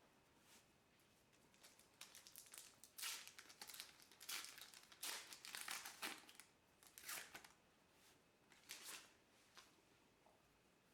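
Plastic wrapper of a trading-card pack crinkling and tearing as it is handled and opened, in a string of short rustling bursts over several seconds.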